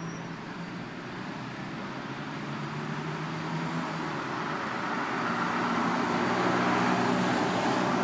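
Road traffic noise, a dense steady rush of passing vehicles growing steadily louder.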